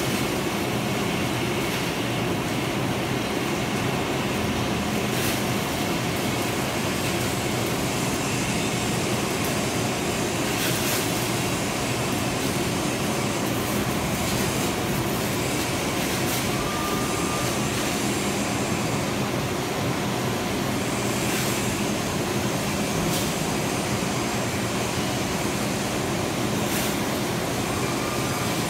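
Machine-tool noise from the bowl of an SP400 cone crusher being machined: a steady mechanical drone with a low hum and a few faint scattered ticks.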